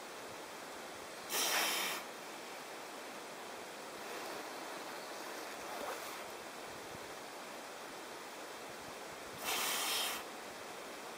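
Weddell seal breathing at its breathing hole in the sea ice: two sharp, loud blows through the nostrils about eight seconds apart, with a fainter, longer breath between them, over a steady hiss.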